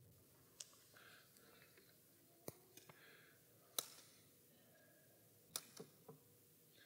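Near silence with a few faint, scattered clicks and knocks.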